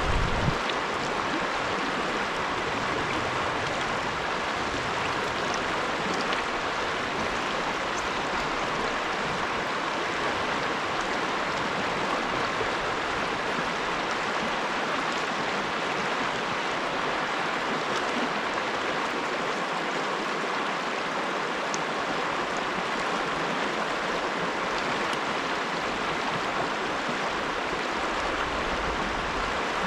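Small mountain creek running, a steady rush of water.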